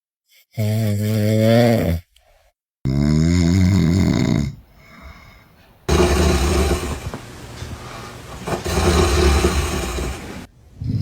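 Loud snoring in several separate snores: the first ones pitched and wavering, then a long harsh rasping stretch, each starting and stopping abruptly.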